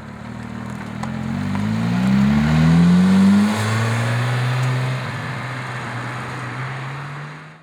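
Porsche 997.2 GT3RS's naturally aspirated flat-six, breathing through Fabspeed sport headers, HJS sport catalytic converters and Mini-Maxflo mufflers, accelerating hard: its exhaust note rises in pitch and loudness, drops sharply in pitch about three and a half seconds in, then carries on lower and fades.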